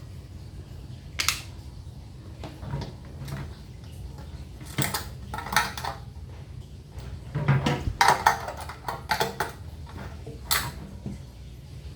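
Metal tools and parts clinking and clanking in short, irregular bursts, with the loudest cluster about eight seconds in, over a steady low hum.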